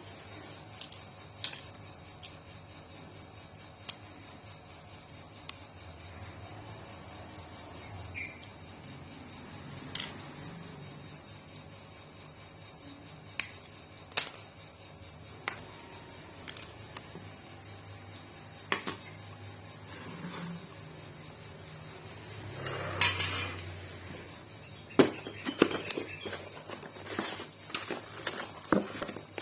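Sharp metallic clinks and taps of hand tools and small metal parts being handled during a sewing machine repair, scattered every few seconds and coming thick and fast near the end.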